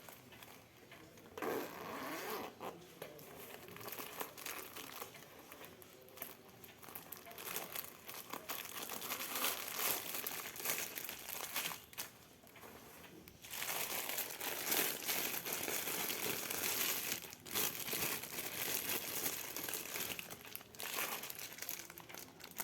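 Packaging crinkling and rustling as it is handled and unwrapped, starting a moment in, with a brief pause about halfway through.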